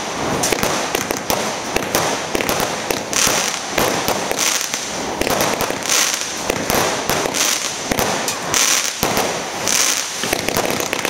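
Aerial fireworks bursting one after another, with dense crackling and sharp pops throughout. A louder burst of crackle comes about every second and a quarter.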